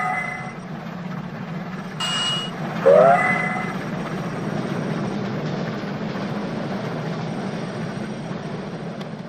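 Train horn sounding two blasts, each sliding up in pitch as it starts: the first ends about half a second in, the second comes about three seconds in and lasts under a second. Between the blasts there is a short, higher-pitched toot. A steady low rumble of the running train continues underneath.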